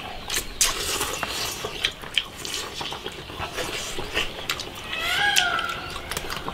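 Eating at close range: chopsticks clicking against rice bowls, with chewing and slurping of rice and soup. A brief pitched cry that rises and falls comes about five seconds in.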